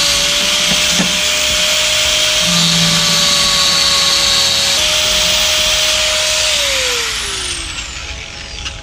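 Electric angle grinder cutting metal: a steady harsh grinding noise over a constant motor whine. About six and a half seconds in the grinder is released and its whine falls in pitch as the disc spins down.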